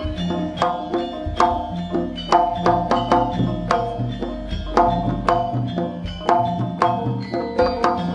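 Javanese jaranan gamelan music: kendang hand drums and struck, ringing gamelan instruments playing a quick, steady rhythm without a break.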